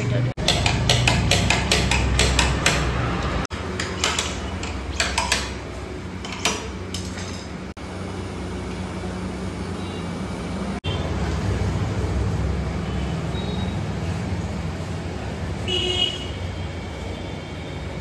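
Metal tools clinking and knocking as a motorcycle's front wheel is taken off in a tyre workshop, a quick run of sharp clicks and knocks near the start and a few more later, over a steady low hum.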